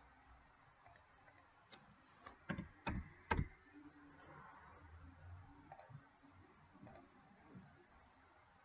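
Faint, scattered computer mouse clicks, a few at a time, the loudest group between about two and three and a half seconds in.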